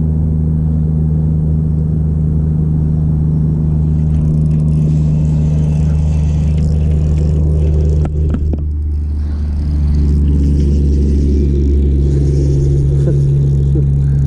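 Boat's outboard motor running steadily, its low drone shifting in pitch about ten seconds in as the throttle changes. A couple of brief knocks sound a little past the middle.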